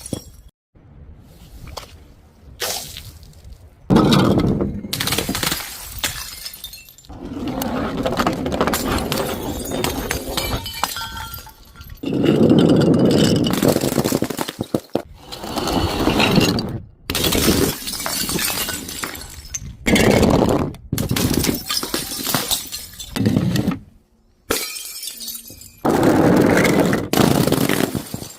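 Glass bottles shattering one after another, a series of loud crashes with tinkling shards. Several of the crashes cut off abruptly.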